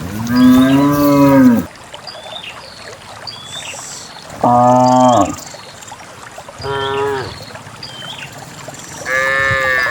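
Cattle mooing: four calls, the first long and low and the loudest, the later ones shorter and higher-pitched, from more than one cow.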